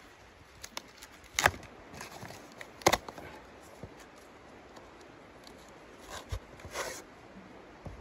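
Thin brown cardboard being torn by hand into pieces, a few sharp rips and crinkles, the two loudest about a second and a half apart, with softer rustling between.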